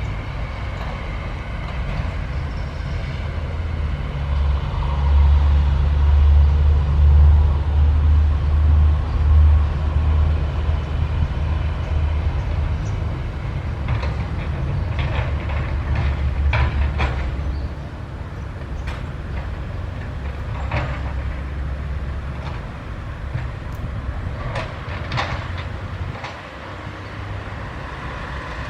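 Sany 135F hydraulic excavator's diesel engine running, growing louder under load for several seconds early in the clip, then a series of metallic clanks and knocks in the second half as the machine works.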